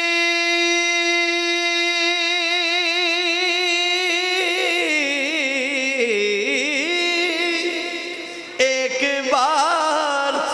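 Unaccompanied naat singing: one voice holds a single long note for about four seconds, then wavers and slides through melodic ornaments. It fades briefly near the end before coming back in louder.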